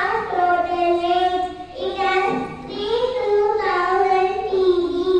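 A young girl singing into a microphone, holding long, drawn-out notes with brief pauses between phrases.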